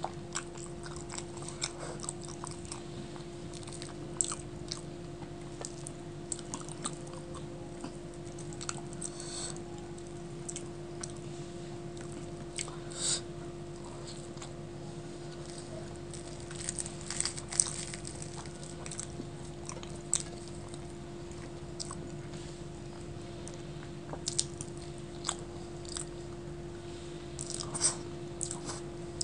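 Close-miked chewing of luchi with dal and potato curry, eaten by hand: irregular soft mouth clicks, smacks and crunchy bites, with the loudest a little after the middle. A steady low hum runs underneath.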